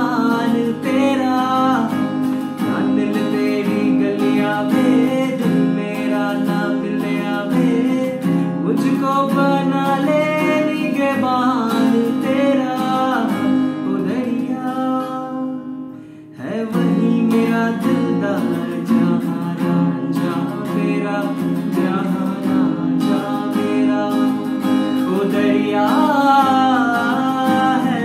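A man singing a Hindi song while strumming chords on an acoustic guitar. The music drops away for a moment a little over halfway through, then resumes.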